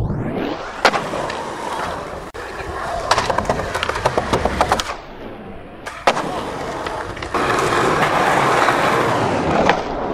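Skateboard wheels rolling on concrete, with sharp clacks of the board's tail popping and the board landing, broken by abrupt cuts between takes.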